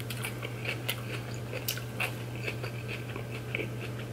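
A person chewing food close to the microphone: irregular soft, wet mouth clicks, over a steady low hum.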